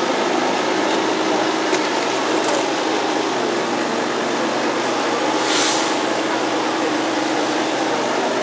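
An engine running steadily at idle, with an even drone, and a short hiss about five and a half seconds in.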